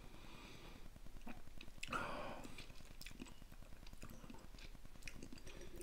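Faint wet mouth sounds of a person tasting a sip of rum, working it around the mouth, with small clicks and a short breathy sound about two seconds in.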